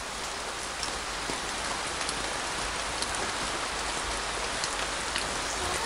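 Steady rain falling on pavement: an even hiss with a few single drops ticking now and then.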